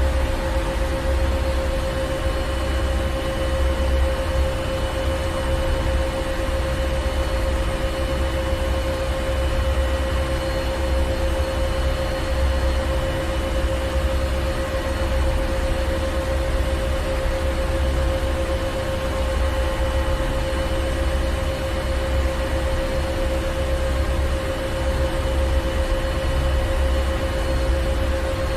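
Ship's engine room: heavy machinery running with a steady deep drone, a constant hum near the middle of the range and fainter steady whines higher up, over an even hiss.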